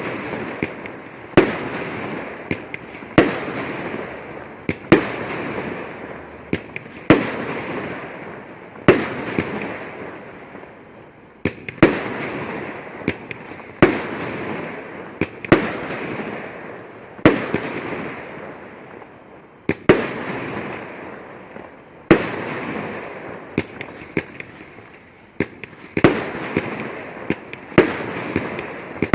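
Red Lantern Elemental Fallout 500-gram multi-shot firework cake firing a sequence of shots. There is a sharp report about every two seconds, each followed by a noisy tail of bursting effects that dies away before the next, with smaller pops in between.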